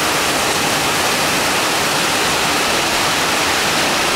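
Steady heavy rain pouring down, a loud, even hiss of water that does not let up.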